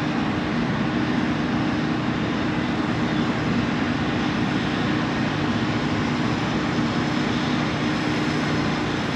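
A boat motor running steadily: a low, even drone with no change in pitch.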